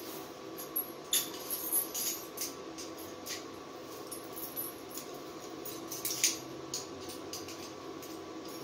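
Irregular light metallic clicks and clinks of steel snow chain links and hand tools being handled, with a steady faint hum underneath.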